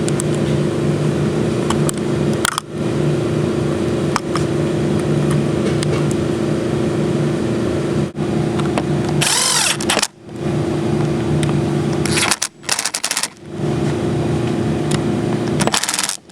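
A steady mechanical hum with a low drone that cuts out briefly a few times, with a short, loud handling noise just before the middle.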